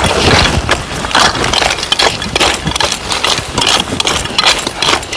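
Hand weeders (khurpa) scraping and chopping into the soil and weeds in quick, irregular strokes, with the rustle of leaves being pulled.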